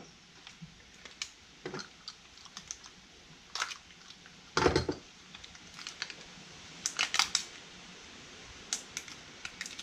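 Scattered light clicks, taps and rustles from handling and opening a pack of new connecting-rod bearing inserts by hand. There is one louder knock a little before halfway and a quick run of clicks about seven seconds in.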